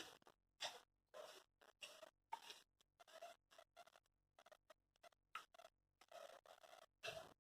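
Near silence, with faint, irregularly spaced clicks and ticks.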